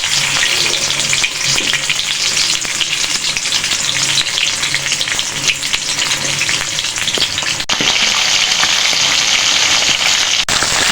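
Pieces of hilsa fish sizzling and crackling in hot oil in a pan as they shallow-fry, a steady dense spatter with two brief breaks, one about three quarters through and one near the end.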